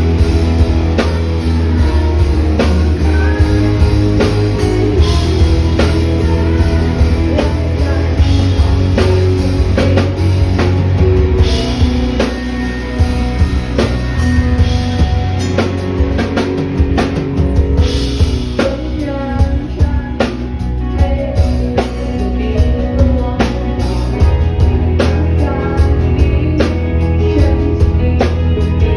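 Live rock band playing a song, with a drum kit keeping a steady beat over bass and guitar.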